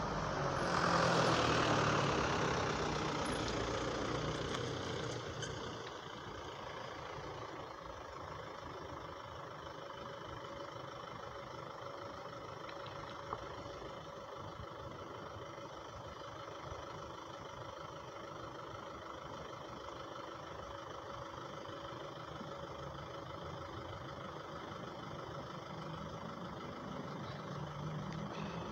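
Motor vehicle engine noise outdoors: a louder swell in the first few seconds as a vehicle passes, then a steady engine hum, with one short click about halfway through.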